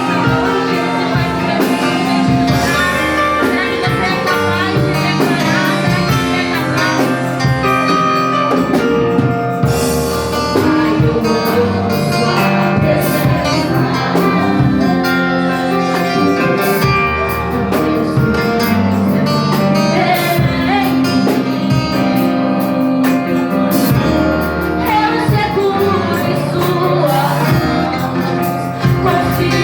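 Music with singing and guitar, a song playing at a steady level.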